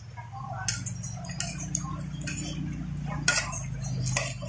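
Close-miked eating: a man chewing a mouthful of rice, with sharp wet clicks and smacks of the mouth and a metal spoon tapping and scraping the plate about five times. A low steady hum runs underneath.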